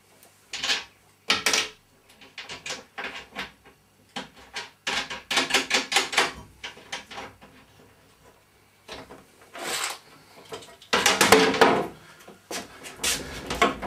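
Clicks, knocks and scrapes of an 8mm bolt being fitted by hand from inside a wooden plinth cabinet to fasten a steel box-section frame on top, in short irregular bursts, with a louder scraping clatter a little past eleven seconds in as the frame is handled.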